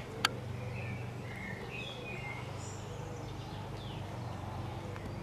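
Small birds chirping and singing, short scattered calls over a steady low background hum, with a single sharp click just after the start.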